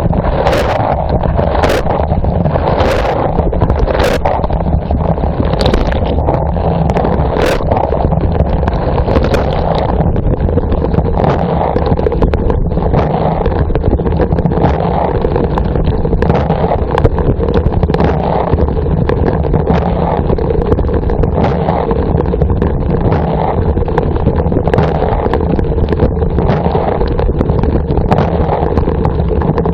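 Water spraying and sloshing inside a running dishwasher, heard loud and close from a phone inside the wash chamber. Sharp water hits strike about once or twice a second over the first several seconds, then the rushing goes on steadily.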